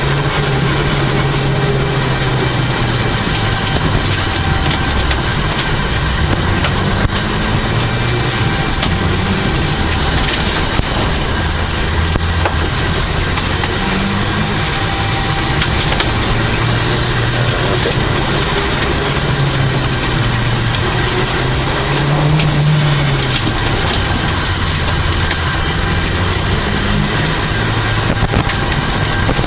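Inside the cabin of a 1989 Toyota Celica GT4, its turbocharged four-cylinder engine is running under way, with the revs rising and falling. Steady road and wind noise runs underneath.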